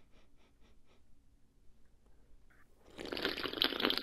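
A person taking a small sip from an aluminium energy drink can: a few faint ticks, then about three seconds in a loud, noisy slurp of drink lasting about a second.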